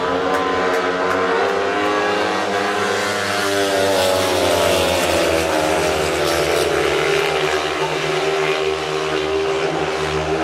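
Several speedway racing motorcycle engines running hard together, their pitch rising and falling as they accelerate and back off.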